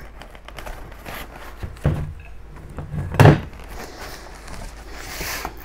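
Two dull thunks about a second apart, the second louder, as dinner plates and their packaging are handled and set down, with light rustling near the end.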